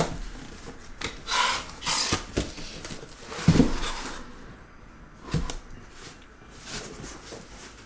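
Cardboard shipping case being lifted off a stack of shrink-wrapped trading-card boxes: scraping, rustling cardboard with a dull knock and a sharper knock as things are handled.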